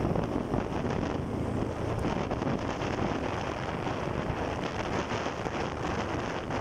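Wind buffeting the microphone on a moving motorcycle, a steady rushing, with the bike's engine running underneath.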